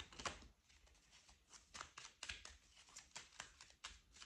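Faint, irregular clicks and flicks of a tarot deck being shuffled and handled by hand, several a second.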